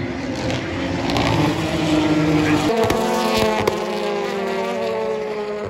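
Racing car engines running hard as cars lap the circuit. About halfway through, a louder engine note takes over and its pitch falls slowly.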